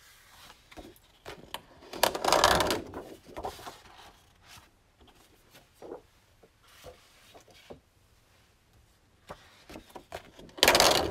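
Sheets of 12x12 scrapbook paper being handled on a cutting mat: a loud rustling swish about two seconds in and another near the end as sheets are slid and turned over, with light taps and clicks of paper between.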